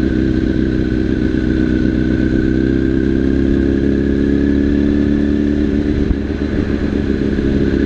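Motorcycle engine running steadily as the bike rides slowly along a road, with a small dip in level about six seconds in.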